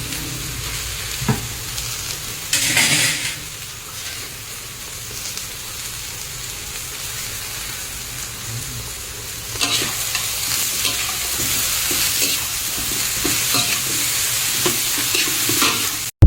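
Rat meat frying in fish sauce in a pan, sizzling steadily, with a louder sizzle about three seconds in. From about ten seconds in, a utensil stirring it clicks and scrapes against the pan.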